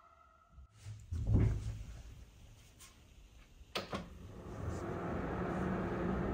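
Handling noises: a low thud, then a sharp click a few seconds later, followed by a steady hiss with a low hum.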